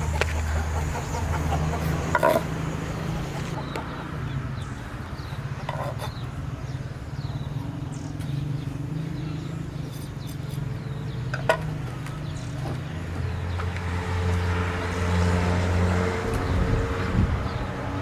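A low, steady motor hum that grows louder for a few seconds near the end, with a few sharp clicks as a knife scrapes chopped herbs into a plastic bowl.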